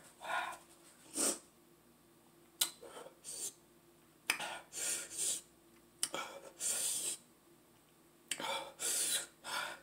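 A woman's sharp, hissing breaths and sniffs, about seven short bursts with pauses between, as she sniffs with a runny nose and blows out against the burn of very spicy sauce.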